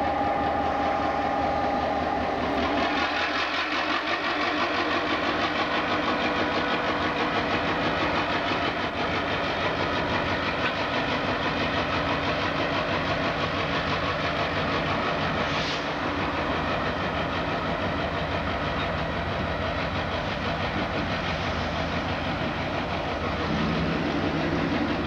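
End-cab diesel switcher locomotive running and rolling along the track, its engine a steady drone mixed with wheel noise on the rails as it moves slowly away.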